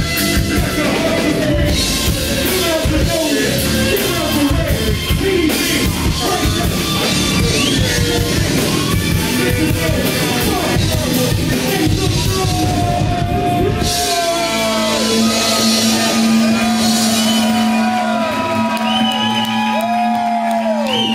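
Live rock band playing loud, with electric guitar, drum kit and vocals. About fourteen seconds in, the drums drop out and a low note is held while sliding higher notes ring over it, as the song closes.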